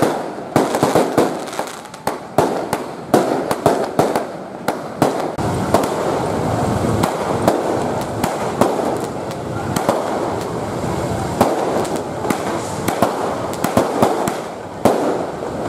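Fireworks going off: a rapid, continuous string of sharp bangs and crackling from aerial shells and firecrackers bursting overhead.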